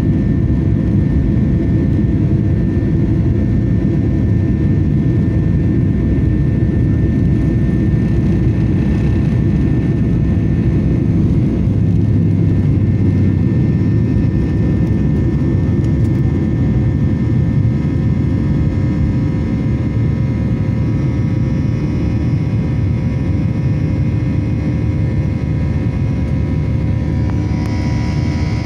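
Boeing 737-800's CFM56-7B turbofan engines at takeoff thrust, heard from inside the cabin: a loud, steady roar with thin whining tones over it, through the end of the takeoff roll, liftoff and the start of the climb. Near the end a higher hiss rises over the roar.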